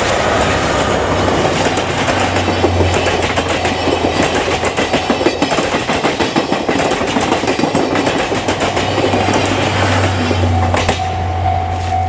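A train of 12-series passenger coaches rolling past at speed, wheels clattering rhythmically over the rail joints. The last coach goes by about eleven seconds in, and a level-crossing warning bell rings again as the noise falls away.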